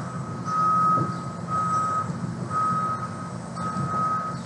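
A vehicle's reversing alarm beeping steadily, one high single-tone beep about once a second, over a low rumble.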